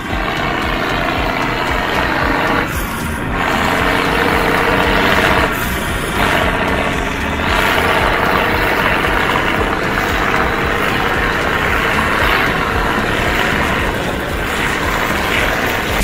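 John Deere 3650 tractor's six-cylinder diesel engine running steadily as the tractor drives along, its loudness swelling and easing slightly.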